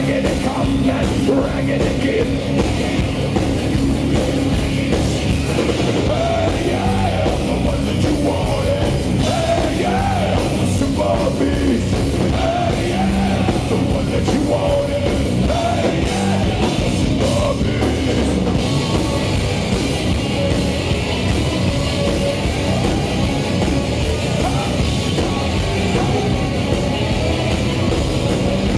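Live heavy metal band playing loud: electric guitar, bass guitar and drum kit, with the vocalist singing and yelling over them, heard from the audience in front of the stage.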